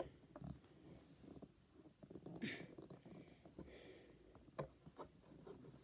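Faint handling sounds of hands working at a small toy: a brief rustle about two and a half seconds in, another softer one, then a couple of sharp soft clicks.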